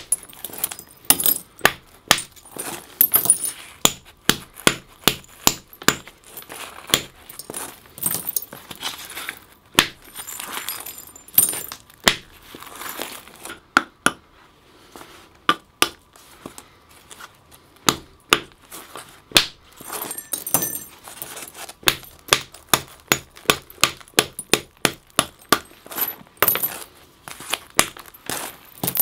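Antler hammer striking a flint adze roughout held on a leather knee pad: a long irregular run of sharp clicking knocks with flakes tinkling off, and a brief lull about halfway. The blows are narrowing the adze by knocking flakes off its edges.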